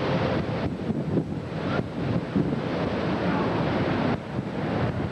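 Strong tornado inflow wind buffeting the camcorder microphone in a loud, steady rush that dips briefly a few times.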